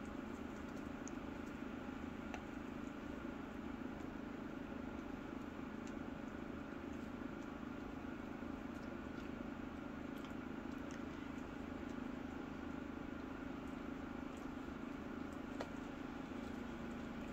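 Steady low hum of background noise, unchanging throughout, with a few faint scattered clicks.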